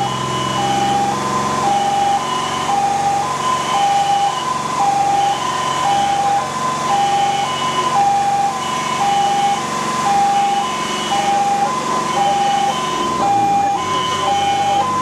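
Fire engine's two-tone siren sounding hi-lo, about one high-low cycle per second, heard from inside the cab of the Magirus-Deutz 192D11 on an emergency run, with the truck's engine running underneath.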